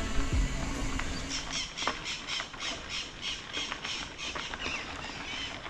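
A bird calling in a fast, evenly spaced run of harsh squawking notes, about four a second, starting about a second in and lasting some three seconds, over a faint steady outdoor hiss.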